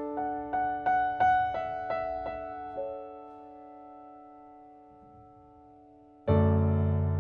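Piano music: a chord, then a string of single notes at about three a second that ring on and fade, and about six seconds in a new, louder chord with deep bass notes.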